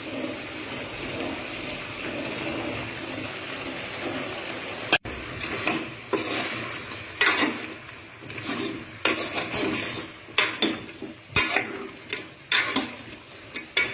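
Chicken pieces, potatoes and tomato sizzling in a pot with a steady hiss. From about five seconds in, a steel ladle stirs them, scraping and clinking against the pot in irregular strokes.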